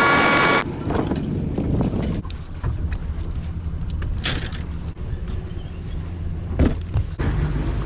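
Wind on the microphone over a steady low hum aboard a fishing boat, with scattered clicks and knocks. A short buzzing tone opens it, and the loudest knock comes a little over six and a half seconds in.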